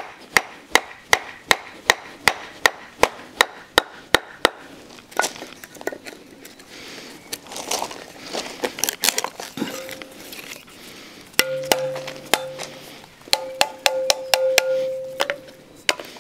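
Point of a one-piece drop-forged steel knife driven into wood over and over, about three sharp knocks a second, then a stretch of scraping and rustling. Later come more knocks, each leaving the steel ringing on one held tone, a nice ring.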